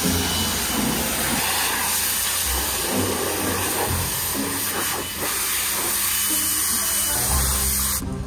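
Car-wash pressure-washer wand spraying water against a truck's body panels and bumper, a steady hiss that cuts off suddenly near the end.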